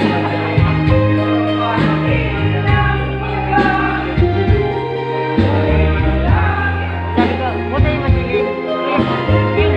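Loud music with singing over held bass notes that change every second or so.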